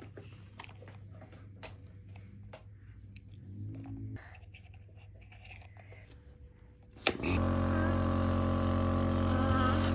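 Faint clicks and rustles of handling, then about seven seconds in a switch clicks and an electric motor starts, running with a loud steady hum.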